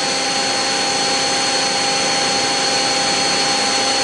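Mazak Quick Turn 20 CNC lathe's spindle running steadily at about 2,000 rpm: an even whir with several fixed, steady whining tones.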